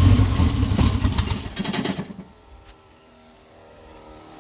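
Turbocharged 1972 Plymouth Valiant's engine running at idle, then its sound drops away sharply about two seconds in. The engine struggles to hold an idle and dies after a minute or two unless given a little gas; the owner hopes raising the idle on the carb will cure it.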